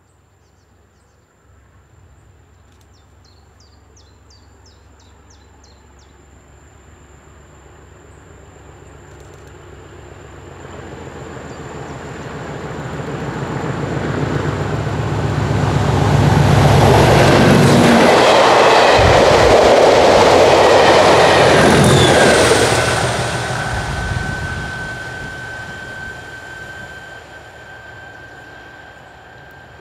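Class 37 diesel locomotives hauling a test train approach from a distance and pass close by: the English Electric diesel engine's drone builds for about fifteen seconds, the train is loudest for about six seconds as it goes past, then the sound fades into the distance.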